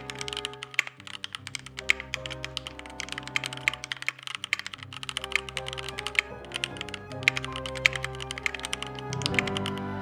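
Rapid, continuous typing on a Keychron Q1 gasket-mounted aluminium mechanical keyboard with lubed switches, a quick run of key clicks. Background music with sustained bass notes plays underneath.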